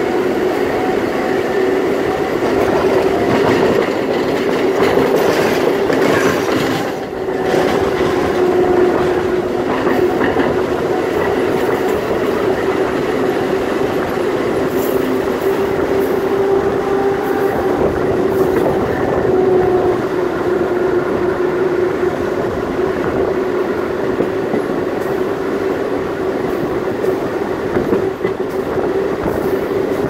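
CBTU Série 900 electric multiple unit running along the line, heard from aboard the car: a steady running noise of wheels on rail with a steady whine of nearly constant pitch, and a brief dip in loudness about seven seconds in.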